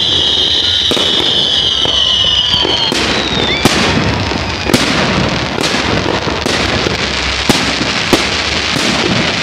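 Loud fireworks display: a high, steady whistle for about the first three seconds, over and then followed by a dense run of sharp bangs and crackling from bursting shells.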